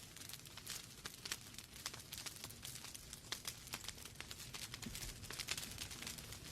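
Wood fire in a fireplace crackling: irregular sharp snaps and pops, several a second, over a low steady rush of the flames.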